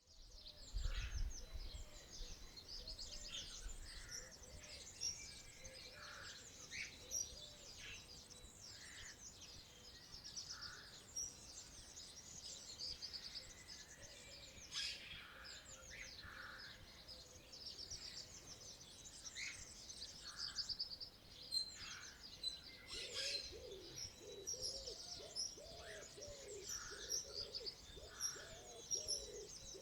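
Faint outdoor birdsong: many small birds chirping and trilling in high-pitched phrases throughout. From about two-thirds of the way in, a low call repeats about twice a second beneath them.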